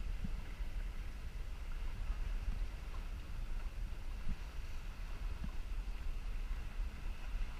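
Steady low rumble of a small motorboat under way on open sea, with wind buffeting the microphone.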